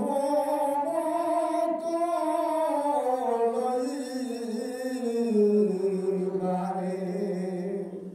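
A man's voice chanting one long, drawn-out Sufi devotional supplication, a call for divine mercy, with no accompaniment. The pitch sinks slowly over about eight seconds and the phrase fades out at the end.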